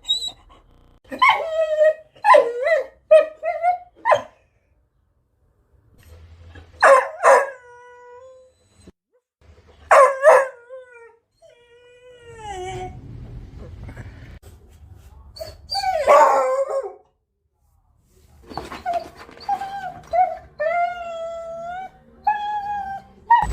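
Beagle vocalising in a string of short yips and whimpers with howl-like notes, in bursts separated by pauses, ending in a run of drawn-out wavering whines.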